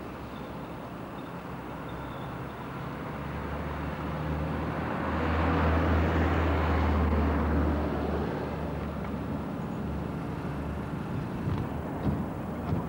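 A motor vehicle passing close by outdoors, its engine hum and road noise swelling to a peak about six seconds in and fading away. A few soft knocks near the end.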